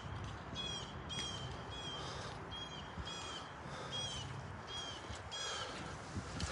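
A bird calling over and over, a short high call about twice a second in an even rhythm, over low outdoor rumble.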